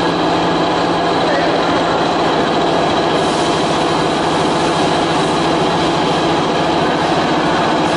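A CNC router's machinery running steadily and loudly, a constant mechanical noise with a few fixed tones and no changes in pitch.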